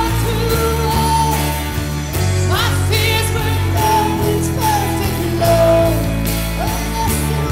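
Worship band playing a song: a vocal melody sliding up into long held notes over steady bass and drums.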